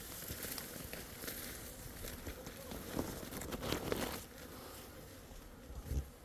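Irregular rustling and crunching with scattered soft knocks, like a hiker's footsteps and clothing or gear moving. It eases off after about four seconds, and there is a low thud near the end.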